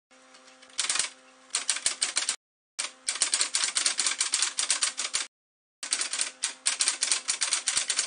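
Typewriter sound effect: rapid mechanical keystrokes, several a second, in three runs separated by two short silences, over a faint steady hum.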